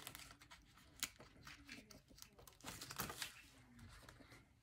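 Faint rustling and crinkling of cash envelopes being handled and put into a budget binder, with a few light taps.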